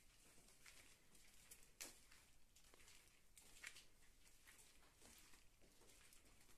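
Faint, irregular footsteps scuffing on a walkway, with a couple of slightly louder steps, over a near-silent background.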